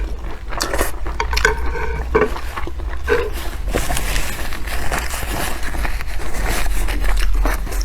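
Close-miked eating sounds: wet chewing and handling of food, a run of small crackles and clicks over a steady low hum.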